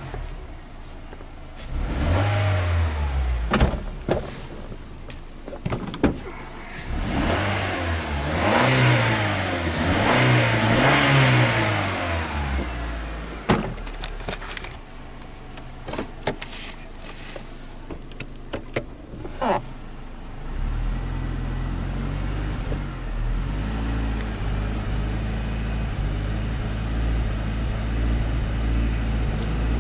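Honda Fit L15A four-cylinder engine revved in several short throttle blips, rising and falling, with a few sharp clicks in between, then running at a steady speed for the last third; this engine misfires when the throttle is pressed.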